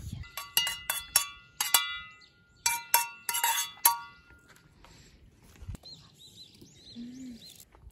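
Metal spoon clinking against stainless steel plates and a steel frying pan as egg is served out, each strike ringing briefly. The clinks come in quick clusters through the first four seconds, then stop.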